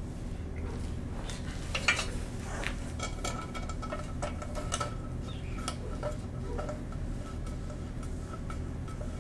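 Scattered light clinks, taps and scrapes as a motorcycle sump guard is handled and lined up against its mounting brackets, over a steady low hum.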